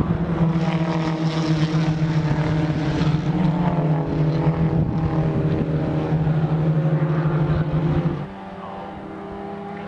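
Holden Gemini race car engines running as a steady drone. About eight seconds in it drops suddenly to a quieter, slightly higher-pitched drone.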